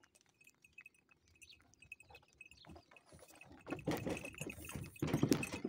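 Bullock cart on the move: small bells on the bull's harness jingle faintly and irregularly. About three and a half seconds in, a louder, rough noise from the moving cart rises and carries on to the end.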